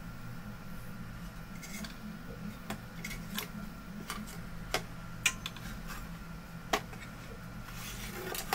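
Scattered light clicks and clinks of a monitor's sheet-metal shielding frame and main circuit board being handled and fitted together, over a steady low hum.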